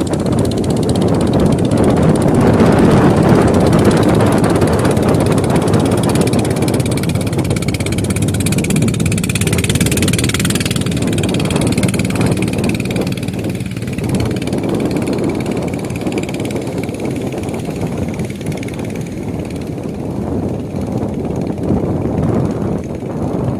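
A fishing boat's engine running steadily under heavy wind noise and the wash of rough water.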